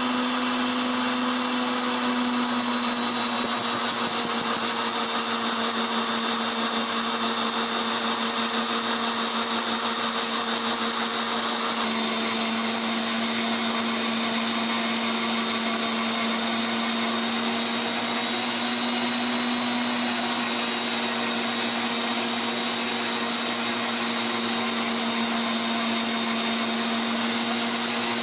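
Lathe tool post grinder running steadily at one pitch, its wheel grinding a diameter on a hardened steel R8 arbor with a continuous grinding hiss. A faint high pulsing whine sits above it for about the first twelve seconds.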